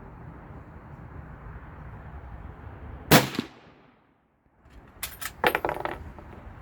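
A single shot from a .300 Savage Model 99 lever-action rifle about three seconds in. About two seconds later comes a quick run of sharp metallic clicks and clacks, as of the lever being worked to eject the case and chamber the next round.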